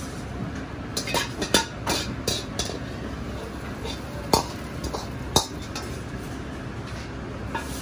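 Metal ladle scraping and clinking against a wok as fried rice is pushed out onto a plate: a quick run of clinks and scrapes about a second in, then two single sharp clinks, over a steady low kitchen hum.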